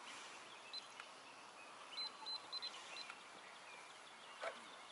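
Quiet open-air background with a few short, high chirps, several in a quick series about two seconds in, and a brief falling squeak near the end.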